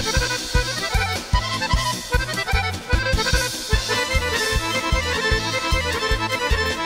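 Instrumental Serbian kolo dance tune: a fast accordion melody over a steady bass and drum beat.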